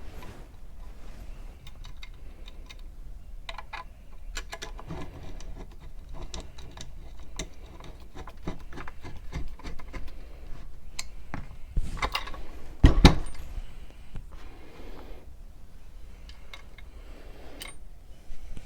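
Small metal mounting hardware, bolts and washers, clinking and rattling as it is handled and fitted, with a couple of louder knocks about 12 and 13 seconds in.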